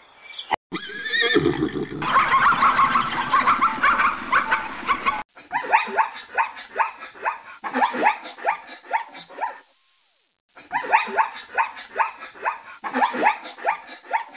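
Zebras calling: bouts of quick, repeated barking yelps, about four a second and each sweeping upward, with a short break between the two bouts. Before them, for the first few seconds, there is a dense, rough, continuous sound.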